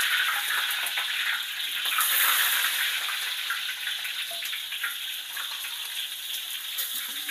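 Hot oil sizzling and crackling steadily around peeled boiled eggs deep-frying in a wok, a little louder about two seconds in.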